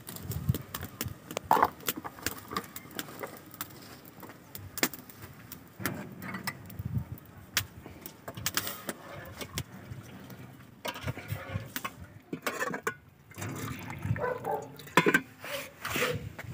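A steel ladle clinking and scraping against an aluminium pot and cups as milk tea is ladled out over a wood fire, with scattered sharp clicks throughout.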